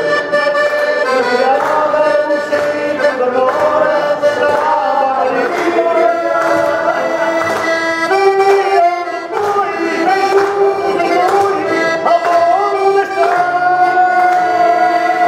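Piano accordion playing a tune, with men singing along and hand clapping.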